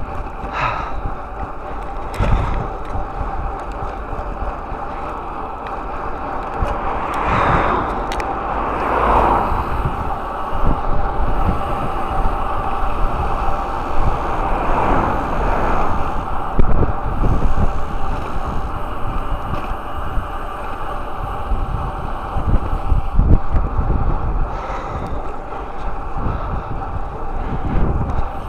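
Gale-force wind buffeting the microphone of a bicycle-mounted camera, with a steady rush of riding noise underneath and stronger gusts swelling twice, about a third of the way in and again around the middle.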